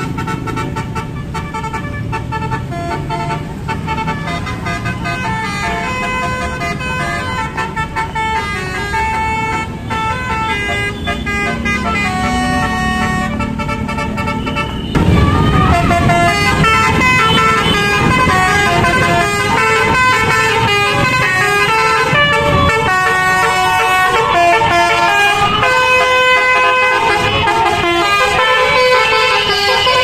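Tour bus's multi-trumpet basuri 'telolet' horn playing tunes note after note, over engine and traffic noise. It gets markedly louder about halfway through as the bus draws near, with more engine noise beneath.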